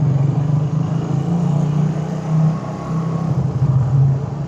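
Suzuki Raider 150 carburetted single-cylinder four-stroke motorcycle engine running on the road, its pitch rising and dipping a little with the throttle.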